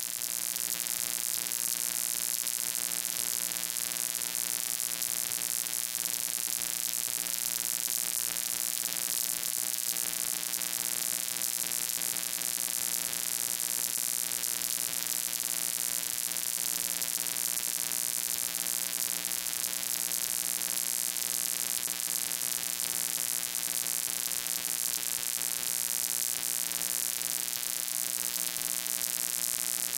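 Steady electrical hum with a buzz of many evenly spaced overtones and a high hiss, unchanging in level.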